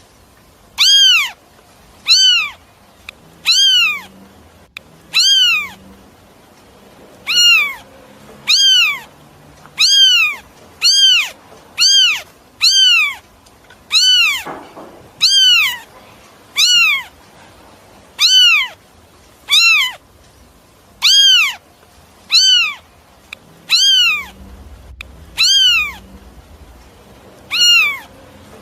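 High-pitched animal calls, repeated about once a second, each a short call that rises and then falls in pitch; the calls are nearly identical throughout.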